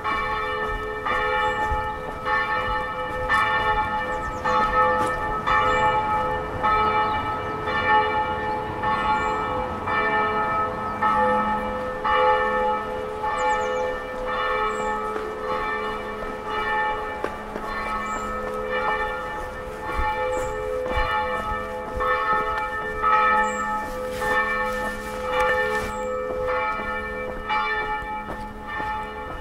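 Several church bells pealing together, struck again and again so that their ringing tones overlap into a continuous peal.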